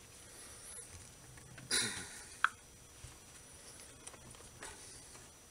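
Hands working a small turntable motor's metal housing: a short rustle, then one sharp metallic click with a brief ring, followed by a few faint ticks.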